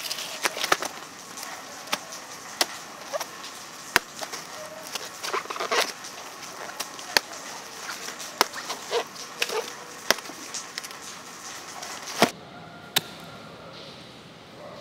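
Cleaver made from a saw blade chopping into a banana plant's fleshy stem: about a dozen sharp, separate chops, roughly a second apart, with softer tearing as the fibrous layers are peeled away between strokes.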